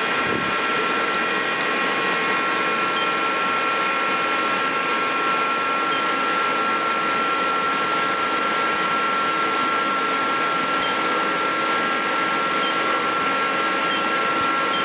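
Mori Seiki NL1500 CNC lathe running: a steady machine hum with a high whine of several pitches held unchanged throughout.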